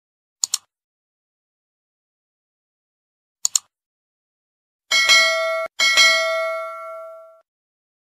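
Sound effects: a quick double mouse click, then another double click about three seconds later. Then a notification bell rings twice, and the second ring fades out over about a second and a half.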